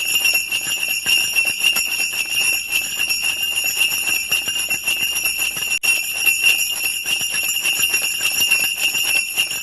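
Sleigh bells jingling steadily in a dense, continuous shake, with one brief drop about six seconds in.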